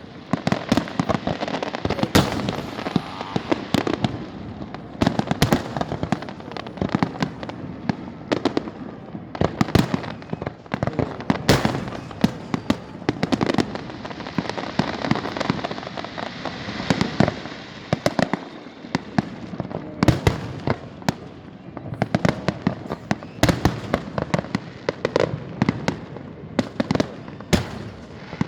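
Fireworks display: a dense, unbroken run of bangs and shell bursts in quick succession, with a stretch of crackling hiss about halfway through.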